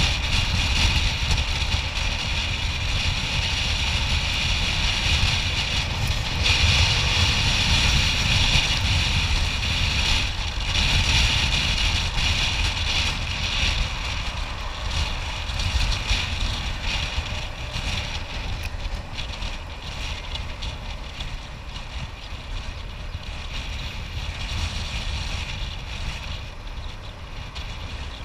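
Wind rushing over the camera microphone of a motor scooter riding along an expressway at speed, over a low rumble of engine and road. It eases off gradually over the second half.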